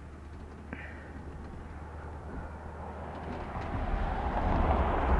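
Low wind rumble on the microphone, with a rush of passing traffic noise building over the last two seconds as an SUV drives by on the road.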